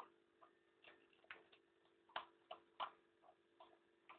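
Fox terrier eating dry food from a plastic bowl: irregular crunches and clicks of chewing and of food and teeth against the bowl, the loudest a little past two seconds and near three seconds in.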